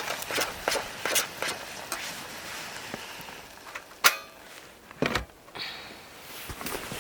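Camping gear being handled close up: scattered small knocks and clicks, with one sharp metallic clink about four seconds in that rings briefly.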